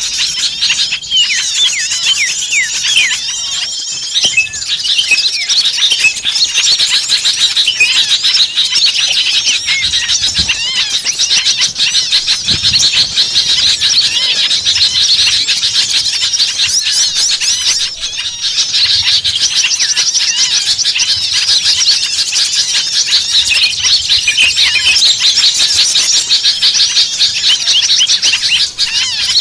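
A dense chorus of many small songbirds chattering, chirping and trilling at once, rapid overlapping calls without a pause. It is a noisy, excited mixed-flock commotion of the kind played as a lure to draw small birds in.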